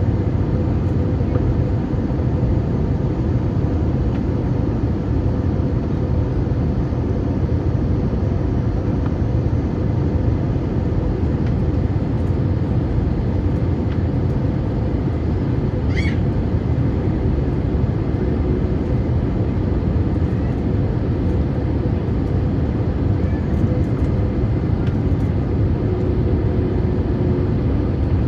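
Steady cabin noise inside an Airbus A321: engine and airflow rumble, with a faint steady hum. A brief faint chirp is heard about halfway through.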